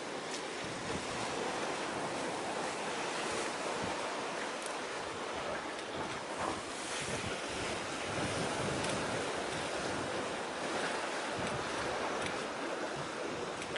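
Steady rush of wind and sea-wave wash, with wind buffeting the microphone in uneven gusts.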